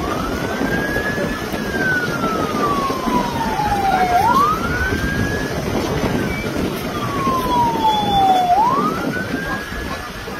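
Emergency vehicle's siren wailing in slow cycles, each a quick rise followed by a long falling glide, about every four seconds, over a steady low rush of background noise.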